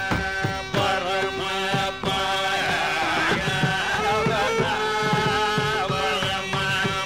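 Carnatic classical concert music: a melodic line bending and sliding between notes over a steady drone, with mridangam strokes keeping the rhythm.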